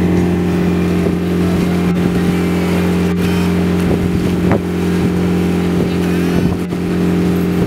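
Tour boat's engine running steadily under way, a low even drone, over the rush of water churning along the hull.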